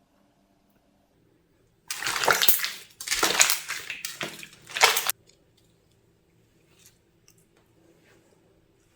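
Wet, sticky squishing of homemade water slime being squeezed and pressed by hand, in three bursts over about three seconds.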